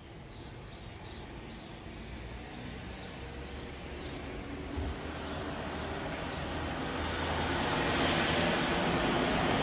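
Engine noise building steadily louder as it approaches, with a series of short high bird chirps in the first few seconds.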